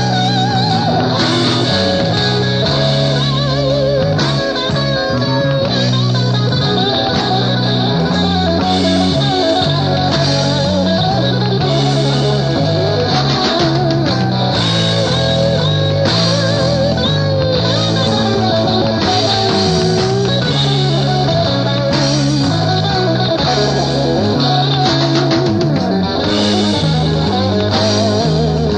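Instrumental passage of a 1970s rock recording: an electric guitar lead with bent, wavering notes over bass guitar and a steady drum beat.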